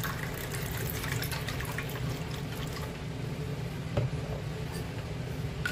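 Chilled water pouring in a thin stream into a glass of ice and juice, filling it; the pour stops partway through. A single light knock follows about four seconds in.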